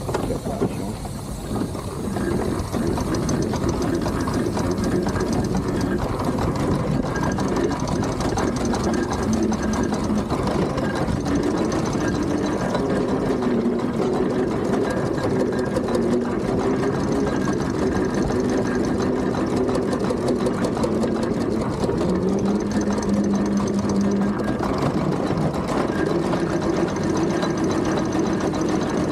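Steam traction engine on the move, its motion and gearing giving a steady, rapid mechanical clatter with a hum that shifts in pitch now and then.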